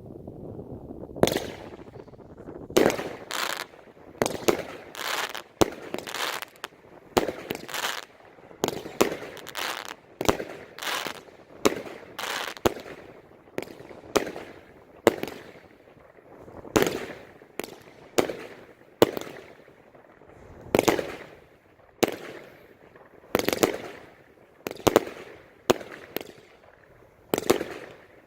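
A 49-shot firework cake firing its shots one after another, a sharp bang about every second, some with a fainter crack just after.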